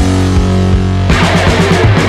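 Rock music with distorted electric guitar and a steady beat, heavier and denser from about a second in.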